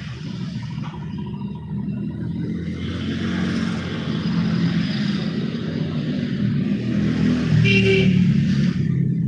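Motor traffic passing on the street: engine rumble and tyre hiss build up steadily, with a short high-pitched squeal about eight seconds in.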